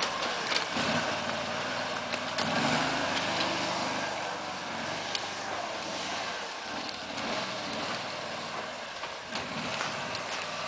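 Engine of an eight-wheeled Argo amphibious ATV running steadily as it reverses away over dry leaves and then drives forward, with scattered sharp clicks over the hum.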